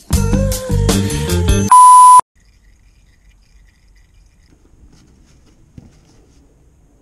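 Background music for about a second and a half, then a loud, steady, high beep lasting about half a second that cuts off sharply. After it only a faint low background remains, with a soft tick near the end.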